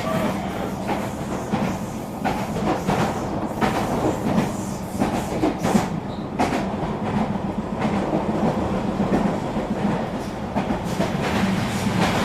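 Regional passenger train running along the track: a steady low rumble with irregular wheel clicks over the rails.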